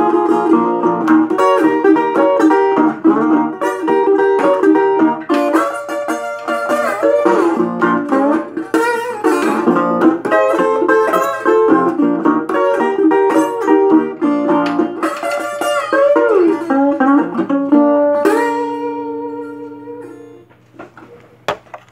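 Metal-bodied resonator guitar in open G tuning, capoed at the third fret, played slide style with fingerpicking, Delta blues: picked notes with glides in pitch under the slide. About three-quarters of the way in it ends on a held chord that rings and fades out.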